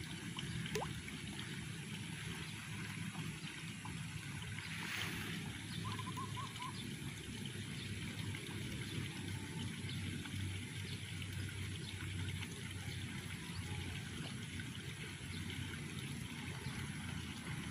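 Steady trickling water with low rumbling outdoor noise underneath, and a brief run of short high notes about six seconds in.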